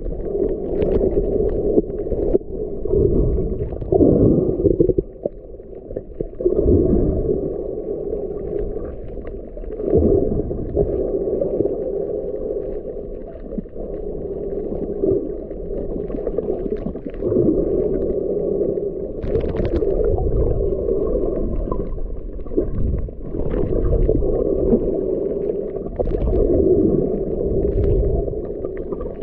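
Muffled underwater noise picked up by a camera submerged in the sea: a low, dull rush of water that swells and dips every few seconds, with faint crackles and a brief brighter click about two-thirds of the way through.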